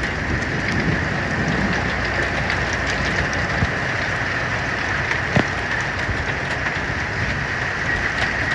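Hail drumming on the roof of a truck cab, heard from inside: a dense, steady patter with many sharp individual ticks of ice stones, and one louder knock about five seconds in.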